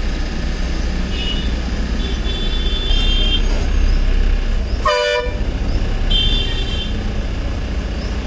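Bus diesel engine running steadily with a low drone inside the driver's cabin, while vehicle horns honk several times. A higher horn sounds a few times, the longest from about two to three and a half seconds in. A short, loud horn blast comes about five seconds in.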